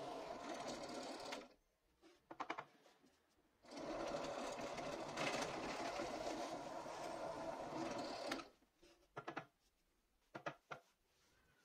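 Bench drill press running and boring a hole in a wooden block with a twist bit. The motor sound stops about a second and a half in, a few short knocks follow, then it runs again for about four and a half seconds before stopping, with a few more knocks near the end as the block is handled.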